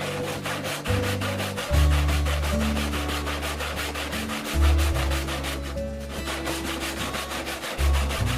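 Saw teeth rasping through a wooden board along the grain, the steady rhythm of hand-resawing at several strokes a second, over background music with low sustained notes.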